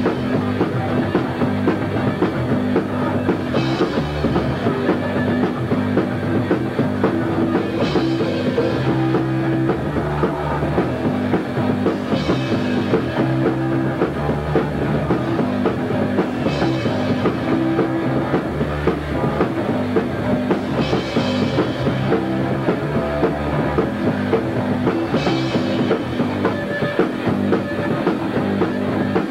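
Punk rock band playing loud and steady on drums and guitar, with a cymbal crash about every four seconds.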